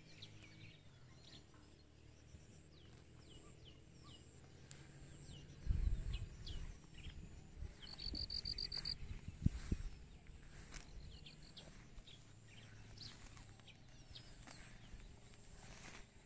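Birds chirping with short falling calls, and a quick trill of repeated high notes about eight seconds in. A steady low hum runs underneath, and low rumbles and thumps on the microphone come around six and ten seconds in; these are the loudest sounds.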